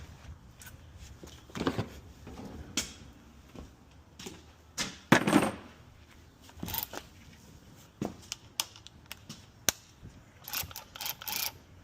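Hand tools clicking and clanking against metal engine parts in irregular knocks, with a louder clatter about five seconds in and a quick run of clicks near the end.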